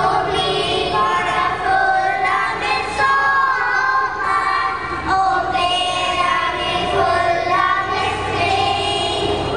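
A children's choir singing a song together, amplified through stage microphones and speakers.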